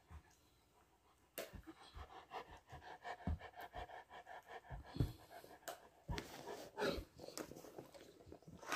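A Great Pyrenees dog panting right at the microphone: a quick, uneven run of breaths begins about a second and a half in, with a few sharp clicks mixed in.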